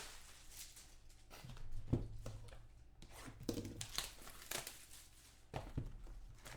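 Wrapping on a sealed trading-card box and its packs being torn and crinkled open, with scattered small clicks and rustles from handling.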